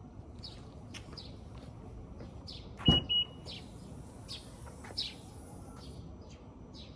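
Small birds chirping over and over with short falling notes. About three seconds in, a knock comes together with two short high electronic beeps.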